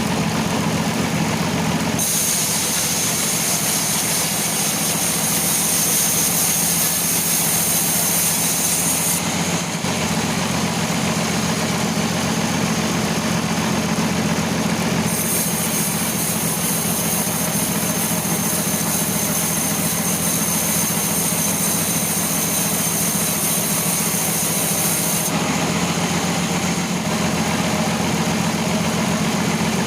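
Sawmill machine saw running steadily on teak logs, with a steady low hum. A high whine and hiss come in twice, each for several seconds.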